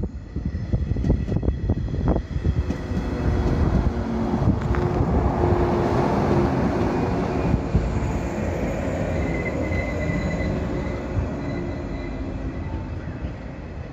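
JR 113 series electric multiple unit running past close by as it slows into the station. A run of wheel knocks comes in the first couple of seconds, a thin high squeal rises as it brakes, and the sound slowly fades as the train draws away.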